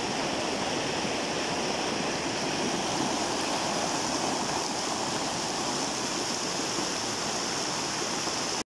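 Muddy floodwater rushing down a street in a torrent: a steady, even rush of water that cuts off abruptly near the end.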